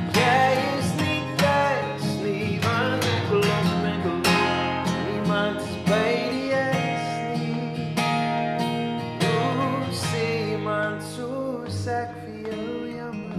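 An acoustic guitar strummed in a slow song, with a man singing over it.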